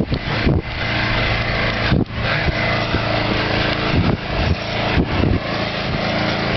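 Small gasoline engine of a trailer-mounted cement mixer running steadily, with a few low thumps of handling noise on the microphone.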